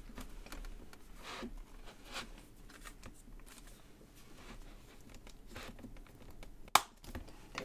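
Hands rubbing and pressing a 2020 iPad Pro 11" into the snap-in shell of a keyboard case, with faint scrapes and taps. Near the end comes one sharp, loud snap as the iPad clicks into place in the case.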